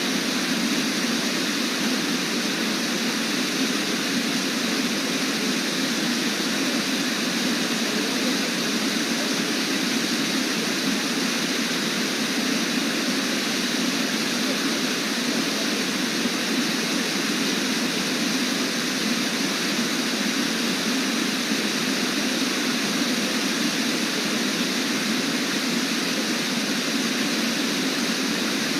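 Waterfall rushing steadily: an even, unbroken wash of falling water that does not change.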